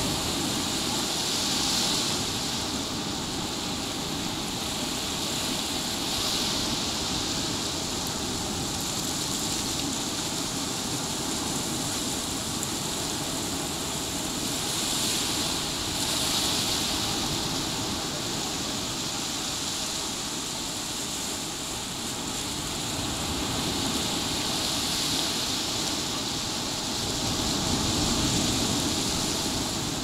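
Ocean surf: low waves breaking and washing up a flat sandy beach, a steady rushing that swells every several seconds as each wave comes in.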